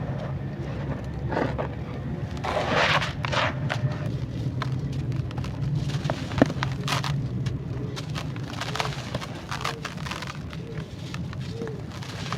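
Dry, grainy sand-textured clay crunching and crumbling, with irregular crackles, a dense burst of crunching about three seconds in and a sharp snap about halfway through.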